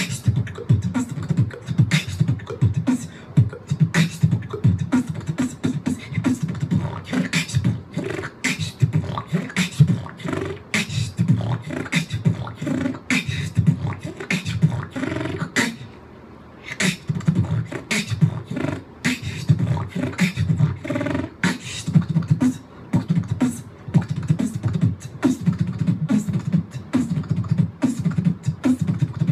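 A person beatboxing close into a microphone: deep mouth-made kick thumps and sharp snare and hi-hat clicks in a steady beat, breaking off briefly about halfway through.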